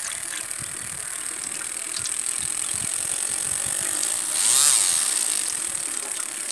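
Homemade water pump running with a steady high whine and rattle while water splashes from its outlet tube onto leaves. It swells briefly a little past halfway.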